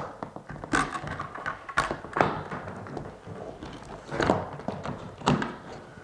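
Steel roller chain being handled by hand as it is lifted off the slide-out motor's gearbox sprocket: links clinking and knocking against the metal housing in a series of irregular knocks and lighter clicks.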